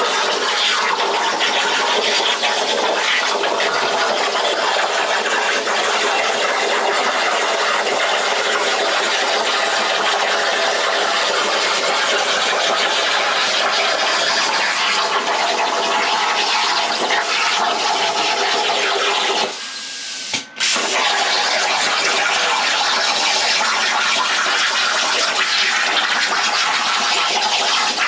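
Plasma torch on a Langmuir Systems Crossfire CNC table cutting 16-gauge steel: a loud, steady rushing hiss of the arc and cutting air. It drops away briefly about twenty seconds in, then resumes.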